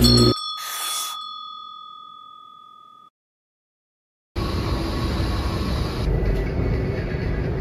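A small bell struck once, its clear ding ringing out and fading over about two and a half seconds. After a second of silence, the steady rumble and hubbub of a train station comes in.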